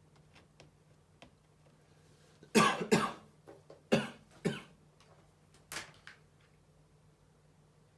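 A person coughing: about five short coughs from a little after a quarter of the way in until about three quarters through. The first two come close together and are the loudest.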